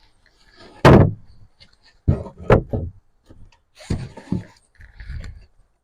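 Several hard knocks and thumps, with no motor running. The loudest comes about a second in, followed by a cluster of three or four near the middle and a few weaker ones near the end.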